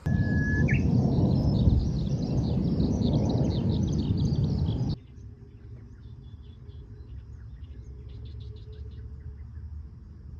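Birds chirping and twittering over a loud low rumble for about five seconds, with a short rising whistle near the start. The rumble and chirps cut off suddenly, leaving fainter bird chirps over a quiet low hum.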